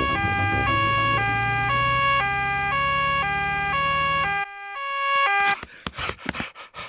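Cartoon emergency-vehicle siren, two tones alternating high-low about once every half second over a low engine hum, on the doctor's car arriving. It cuts off suddenly after about four and a half seconds, sounds briefly once more, and is followed by a few short knocks near the end.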